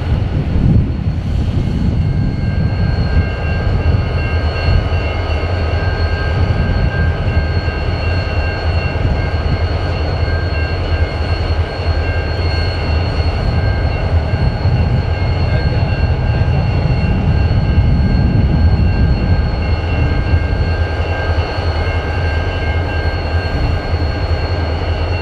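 Two BNSF diesel-electric locomotives idling while standing still: a steady low engine rumble with a steady high whine over it.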